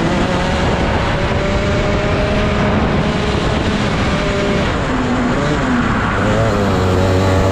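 Rotax Max 125 cc two-stroke kart engine at racing speed, heard onboard. It runs high and steady, falls in pitch about four and a half seconds in as the kart eases off for a corner, then climbs again near the end as it accelerates out.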